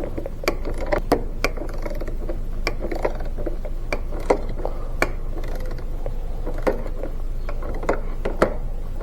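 Socket ratchet clicking in short runs, with sharp metallic clicks and clinks, as exhaust bracket bolts are tightened, over a steady low hum.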